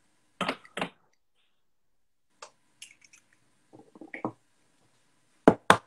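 Eggshell and bowl handling while an egg is separated by hand: scattered short knocks and clicks, a cluster of low knocks about four seconds in, and a quick run of sharp taps near the end.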